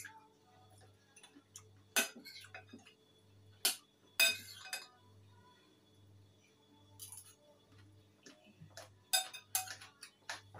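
Fork clinking and scraping against a bowl as salad is picked up and eaten: a handful of sharp clinks a few seconds apart, with a short scrape about four seconds in. A faint low pulse repeats a little over once a second in the background.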